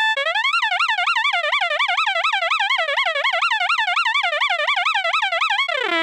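High electronic tone in an otoMAD remix, wavering quickly up and down in pitch like a siren, about five wobbles a second. It breaks off briefly just after the start and glides down to a lower pitch near the end.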